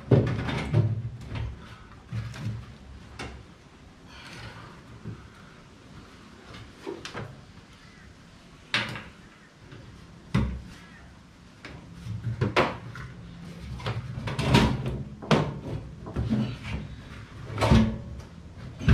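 Irregular clicks, clunks and knocks of hands and a hand tool working on the fuel tank's hose clamps and fittings in a Volkswagen Super Beetle's front trunk, with several louder clunks scattered through.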